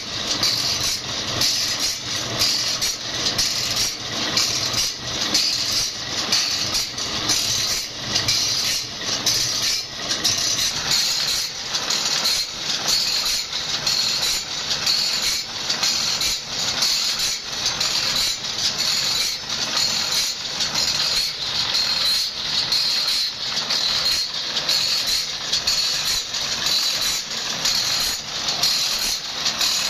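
Automatic band-saw blade sharpening machine running: its electric motor drives a grinding wheel into the saw teeth while the pawl feed steps the blade on tooth by tooth. The grinding rasps in a steady repeating rhythm of about one and a half strokes a second.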